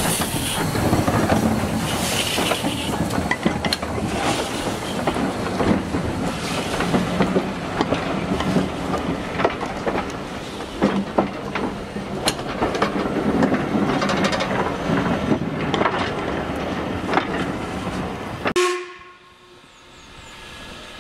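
Robert Stephenson and Hawthorns 0-4-0 saddle tank steam locomotive and its coach passing close at low speed: steam hissing at the engine, and wheels clicking and knocking irregularly over the rail joints. The sound cuts off suddenly near the end.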